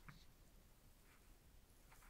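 Near silence, with a few faint, soft rustles from gloved hands handling the headphones.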